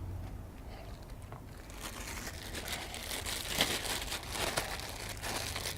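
Crinkling, rustling handling noise that starts about two seconds in and grows busier, as silicone grease is worked onto a PVC-taped cable termination by hand, over a low steady hum.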